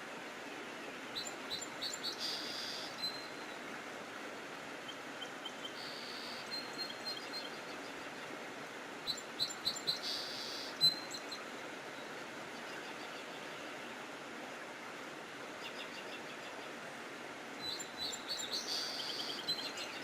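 Songbirds singing in about four short bursts of quick repeated chirps and trills, over a steady background hiss.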